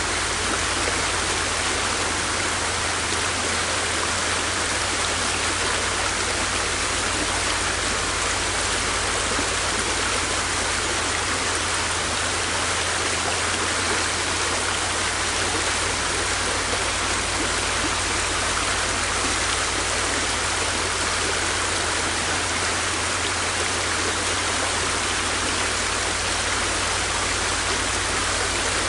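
River water flowing and rushing steadily, an even, unbroken sound of moving water.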